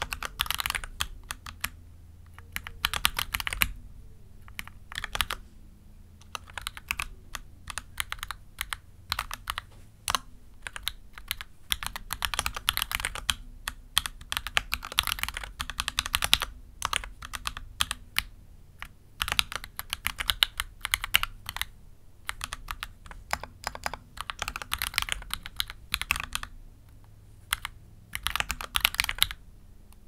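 Mechanical keyboard with Gateron Oil King v2 linear switches being typed on: runs of quick keystroke clicks broken by short pauses.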